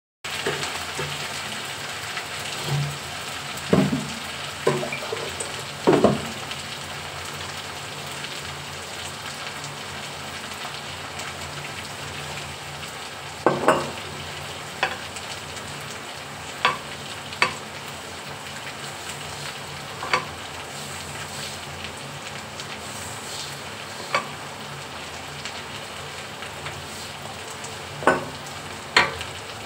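Food frying with a steady sizzling hiss, with about a dozen sharp clinks and knocks of cooking utensils scattered through it.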